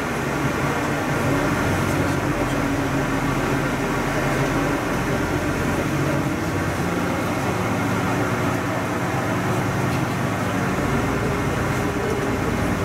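City bus running, heard from inside the cabin: a steady engine and road drone whose engine note shifts pitch a few times.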